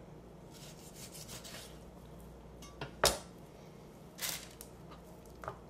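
Chef's knife cutting through a raw chicken's leg joint on a heavy plastic cutting board: quiet scraping, then a sharp knock of the blade against the board about three seconds in, a lighter clack about a second later and a small tap near the end.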